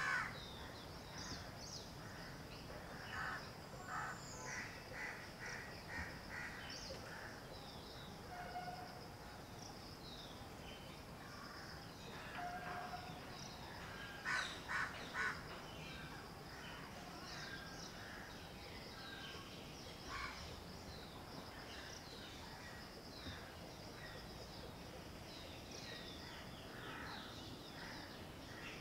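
Birds calling, among them crows cawing, with three loud caws about half a second apart near the middle. A steady high-pitched insect hum runs underneath.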